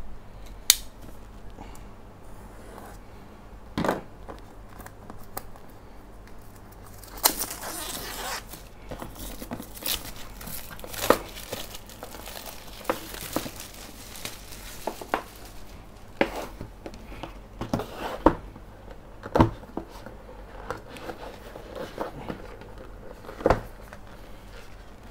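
Keyboard packaging being opened and handled: paper and plastic crinkling and tearing, with scattered knocks and taps of cardboard and parts. A longer stretch of crinkling comes about seven seconds in.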